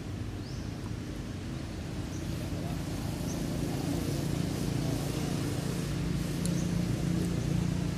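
A steady low motor hum that grows a little louder in the second half, with a few faint, short, high chirps over it.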